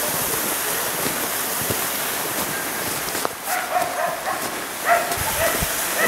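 A dog barking in a series of short, high yips, one drawn out like a whine, starting about halfway in over a steady hiss.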